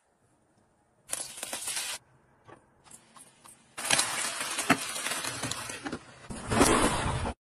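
Vegetables sizzling in hot oil in an electric frying pan: a short burst about a second in, then steady sizzling from about four seconds in, with a few sharp clicks and a louder stretch near the end.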